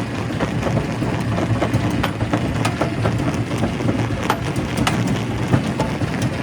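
Quarry primary rock crusher running with a steady low rumble, with frequent irregular sharp cracks and knocks as rock is broken.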